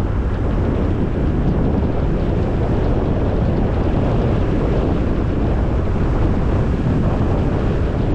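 Steady low rumble of a car driving along a road: tyre and engine noise, with wind on the microphone.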